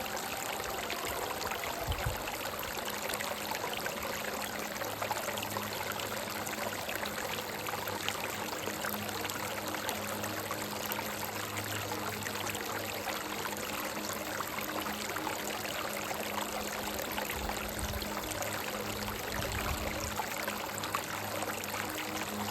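A rocky brook running: a steady rush and babble of water flowing between stones.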